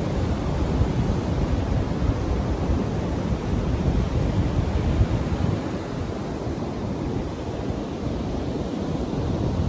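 Ocean surf washing onto the beach, mixed with wind rumbling on the microphone; it dips a little past the middle.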